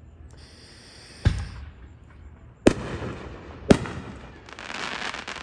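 Fireworks going off. A high whistle is cut by a deep boom about a second in, then two sharp bangs about a second apart ring out with echo, and dense crackling comes near the end.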